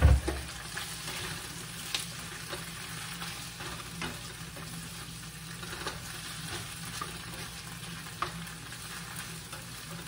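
Tofu frying in oil in a nonstick pan, with a steady sizzle. It is stirred with a spatula that knocks and scrapes against the pan in short clicks every couple of seconds.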